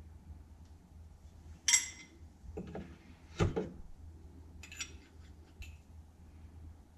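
Metal parts of a steering wheel puller clinking and knocking as they are handled: a sharp ringing clink about two seconds in, a duller knock a second or so later, then a few lighter clinks.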